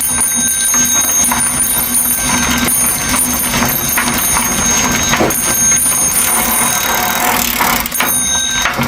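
Bicycle sound effect: a bicycle bell ringing in repeated stretches over the steady noise of riding.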